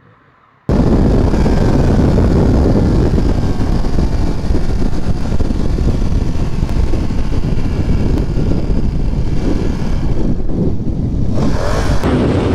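Motorcycle riding at speed: a loud, even rush of wind on the rider's camera microphone, with the engine note faintly rising and falling beneath it. It starts abruptly about a second in.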